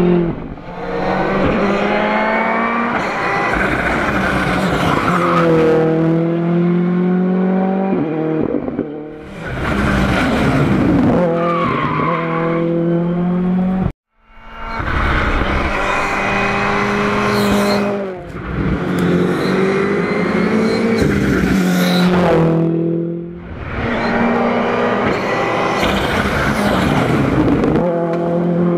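Ford Fiesta R5 rally cars' 1.6-litre turbocharged four-cylinder engines driven hard in a series of fast passes, the engine pitch climbing through the gears and dropping on the lift-offs and braking. The sound cuts off sharply about halfway through, then more passes follow.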